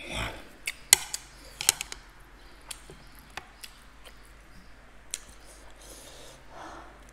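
Close-miked eating of instant noodles: a slurp right at the start, then wet chewing and lip-smacking clicks, and a softer slurp near the end.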